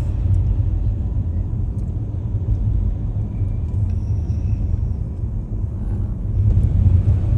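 Car driving slowly, heard from inside the cabin: a steady low rumble of road and engine noise.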